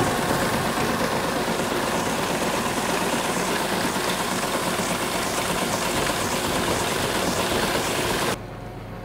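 Farm machinery running steadily while loading fertilizer: an engine hum of several tones over a rushing noise from the conveyor carrying fertilizer from the wagon into the planter tanks. It cuts off abruptly near the end.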